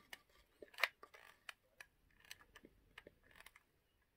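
Hot glue gun in use along a wooden edge: faint, irregular clicks and small taps from the gun's trigger and tip as the glue is squeezed out.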